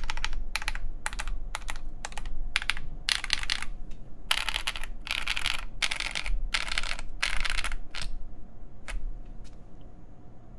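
Mechanical keyboard with OneKey Momo Oolong linear switches, MTNU Graphite keycaps and an FR4 plate (a Nooir Noland N1) being typed on in quick runs of keystrokes, which thin to a few single keystrokes about nine seconds in and then stop.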